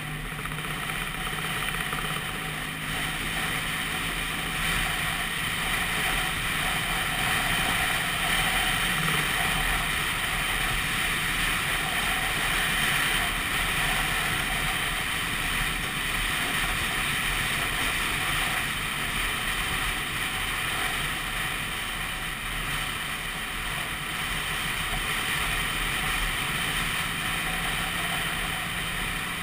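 Vespa PX200's two-stroke single-cylinder engine running steadily at road speed, mixed with wind noise on the microphone.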